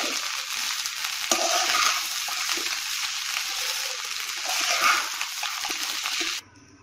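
Egg fried rice sizzling in a hot pan as it is stirred and tossed with a metal slotted spatula, with a few sharp scrapes of the spatula against the pan. The sizzle cuts off suddenly near the end.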